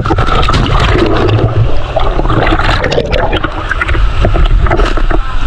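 Water sloshing and splashing right at the microphone as it is held at the surface of a spring pool among swimmers, with a heavy low rumble and many small splashy knocks.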